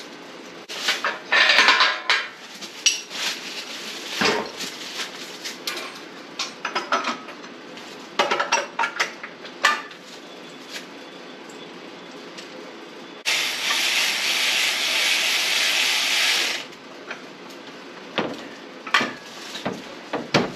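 Scattered metal clinks and clanks from hands-on work around an engine and its hardware, loudest in a cluster about a second in. A steady hiss starts abruptly past the middle, runs about three seconds and stops just as suddenly.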